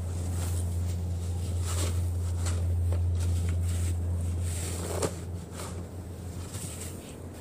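Snow shovel pushed through packed snow, scraping in several strokes with a sharper knock about five seconds in, over a steady low hum that fades out after about five seconds.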